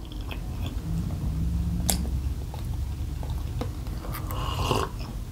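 A person chewing food, with small clicks of a fork against a plate and a sip from a glass mug about four seconds in.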